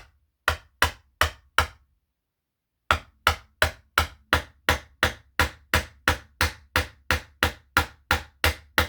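A hammer strikes a block held over a new Floyd Rose tremolo mounting post, driving the post into the guitar body. Four quick strikes, a pause of about a second, then a steady run of strikes at about three a second.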